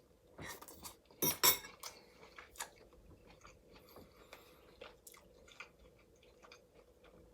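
A person chewing a mouthful of chicken curry close to the microphone: soft, irregular mouth clicks.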